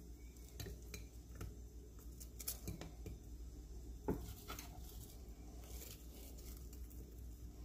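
Sliced onion rings dropped by hand into an empty ceramic slow-cooker crock, giving scattered light taps and clicks, one louder tap about four seconds in.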